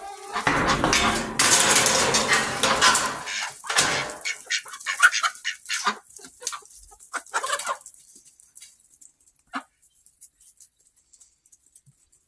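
Flock of chickens clucking, with a loud rustling noise over the first few seconds; the sound then thins to scattered short clucks and clicks and fades nearly away.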